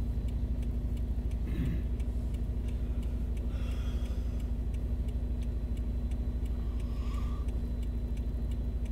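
Steady low vehicle engine drone heard from inside a cab, with faint regular ticking over it.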